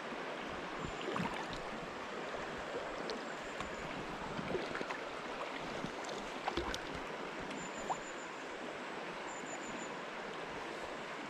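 River water flowing steadily, with a few faint light clicks.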